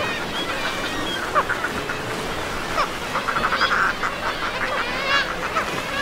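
A seabird colony calling: many overlapping harsh calls, with a run of rapid chattering notes about halfway through, over a steady background hiss.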